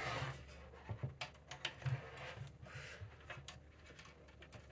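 Faint, scattered clicks and light taps of small metal parts being handled and fitted by hand, as the carriage wheels of a laser engraver's X-axis are put back on.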